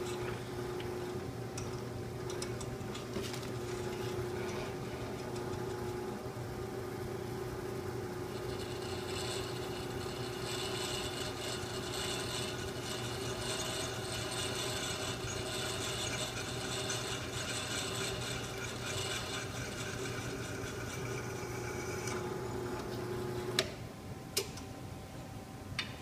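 Benchtop drill press running steadily while its bit drills a hole through a small metal tab held in the drill-press vise. From about a third of the way in, a harsher, higher-pitched cutting noise joins the motor hum and lasts until shortly before the end. The motor then shuts off abruptly near the end, followed by a few sharp clicks.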